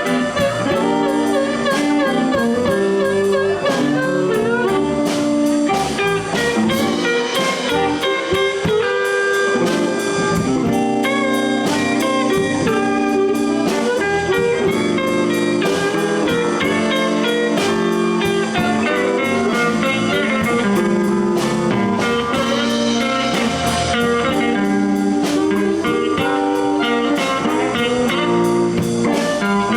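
Live blues band playing an instrumental break: electric guitar lines over bass and a drum kit shuffle, with no singing.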